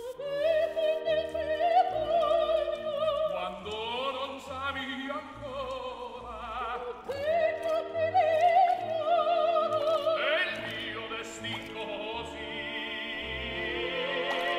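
Background music: an operatic voice singing long, wavering notes over an orchestra.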